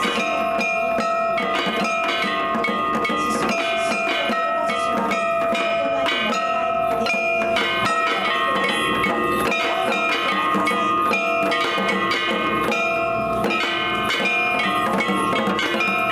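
Shishimai lion-dance accompaniment: drums struck in a steady rhythm under sustained ringing metallic bell-like tones.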